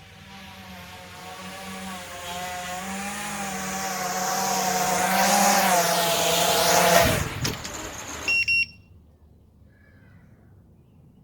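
FPV quadcopter's brushless motors spinning 3D-printed ducted 5-inch propellers, a whine wavering in pitch that grows louder as the quad comes closer, then cuts off with a sharp jolt about seven seconds in, as on a landing. Two short high electronic beeps follow.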